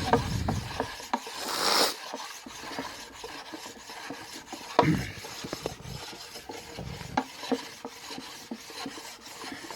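Medium-grit side of a sharpening stone scraping back and forth across a wooden cutting board, used as a sanding block to smooth the surface. A few light knocks come in among the strokes.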